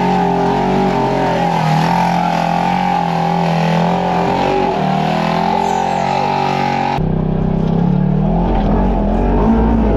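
Polaris RZR side-by-side engine running at a steady, fairly constant throttle while crawling over an obstacle. The pitch shifts a little now and then, and the sound cuts abruptly to another shot of the same engine noise about seven seconds in.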